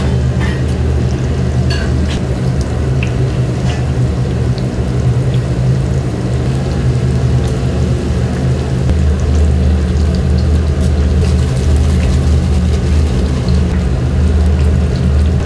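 Restaurant kitchen noise: a steady low rumble, like burners and extraction running, under an even hiss, with scattered light clinks of utensils.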